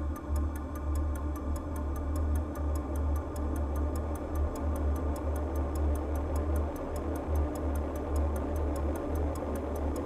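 Background music bed: a pulsing bass under a quick, even clock-like ticking beat.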